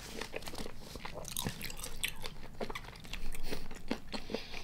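Close-miked chewing of soy-sauce-marinated raw tiger prawn dipped in egg yolk: a run of small, irregular mouth clicks.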